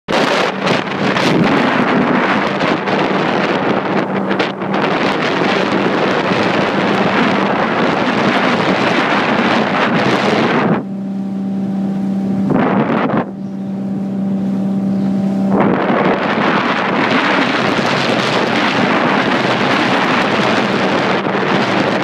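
Motorboat engine running at a steady speed under heavy wind buffeting on the microphone. For a few seconds around the middle the wind drops away and the engine's steady hum comes through clearly.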